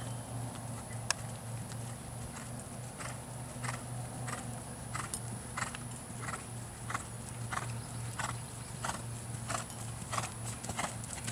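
A horse's hoofbeats on sand arena footing, a regular beat about every two-thirds of a second, over a steady low hum. One sharper click comes about a second in.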